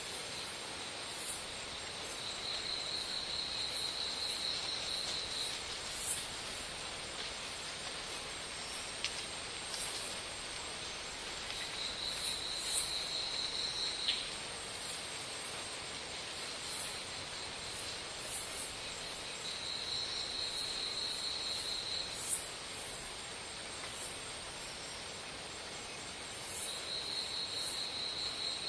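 Insects calling against steady outdoor background noise: a high pulsing trill that lasts two to three seconds and comes back about every eight seconds, with short, very high chirps in between.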